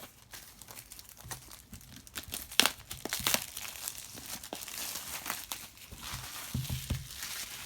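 Packaging of a trading card box being crinkled and torn open by hand, with scattered sharp snaps, the loudest about two and a half seconds in, and steadier crinkling after that.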